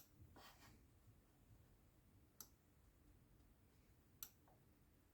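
Near silence with three faint, isolated clicks spread a second or two apart.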